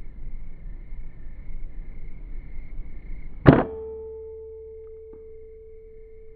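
A single air rifle shot about halfway through, a sharp crack followed by a long, steady ringing tone that fades slowly. A small click comes about a second and a half after the shot.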